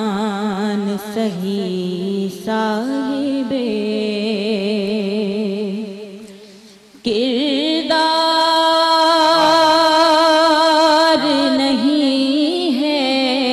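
A woman singing a naat, an Urdu devotional poem, into a microphone, her voice wavering on long held notes. It fades out about six seconds in, and a second later a loud, steady held musical note cuts in suddenly and lasts to the end.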